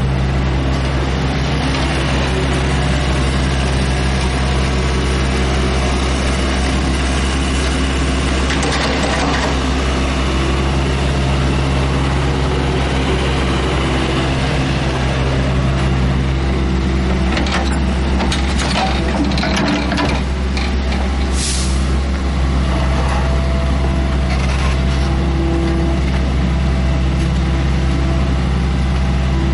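Tracked mini excavator's diesel engine running steadily under load, with the hydraulics whining as the arm and bucket move. The bucket scrapes and knocks against soil and rock in a cluster of clanks about two-thirds of the way through.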